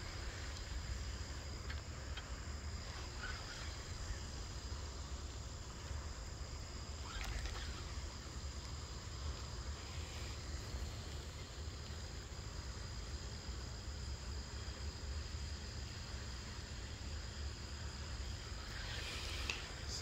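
Insects trilling in one steady high tone over a low, steady outdoor rumble.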